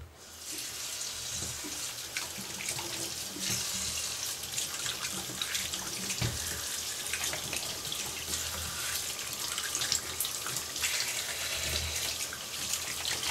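Kitchen tap turned on about half a second in, then running steadily into a stainless steel sink while onions and carrots are rinsed by hand under the stream, with small splashes and knocks.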